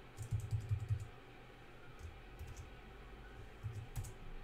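Computer keyboard keys being pressed: a quick run of taps in the first second, a couple of single taps midway, and a few more near the end.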